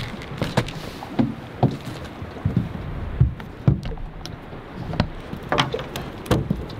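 Irregular knocks and thumps against a small boat over a steady rushing noise of wind and water.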